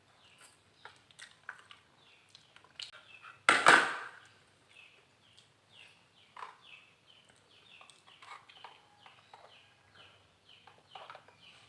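Small birds chirping: many short, quick falling chirps repeated one after another. About three and a half seconds in, a brief loud noise cuts across them.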